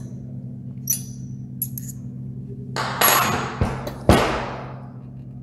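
A few light metallic clicks from handling an explosion-proof light fitting's wire guard, then two heavy knocks about three and four seconds in as the metal housing is tipped onto its side on the table. The second knock is the loudest and rings on as it fades.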